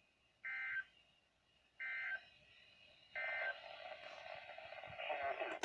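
NOAA Weather Radio EAS end-of-message data bursts: three short, identical warbling digital tones about 1.3 s apart, closing a Severe Thunderstorm Warning broadcast. After the third burst, a fainter steady noise from the radio carries on.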